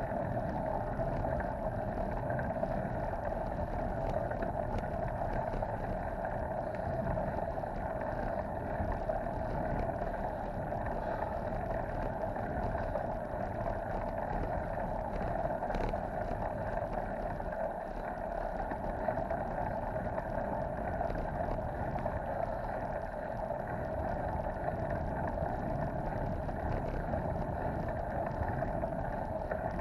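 Steady rushing noise of a bicycle ride on a wet concrete road: wind and tyre noise, with no distinct events.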